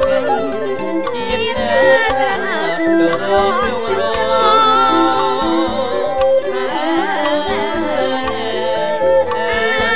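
Voices singing a traditional Khmer song in unison, with a wavering, ornamented melody over steady drum accompaniment.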